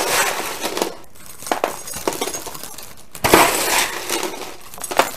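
Crunchy caramel-coated popcorn scooped with a metal spoon from a foil roasting pan and poured into a cellophane treat bag: crisp rustling and clinking, with the loudest scoop about three seconds in.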